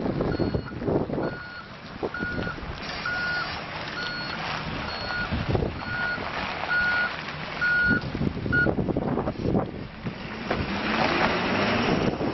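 Backup alarm on a 2011 Ford F-550 flatbed truck beeping steadily, about one and a half beeps a second, over its 6.7-litre diesel engine running and wind on the microphone. The beeping stops about two-thirds of the way through, and near the end the engine rises in pitch as the truck pulls away.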